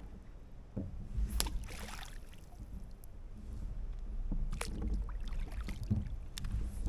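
Kayak handling sounds on the river: a few sharp clicks and knocks with a short splash of water about a second and a half in, over a low rumble.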